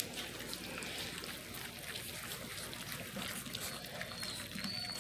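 Basset hound puppies lapping and slurping wet puppy mush from a shallow metal bowl: a steady run of small wet smacks and clicks.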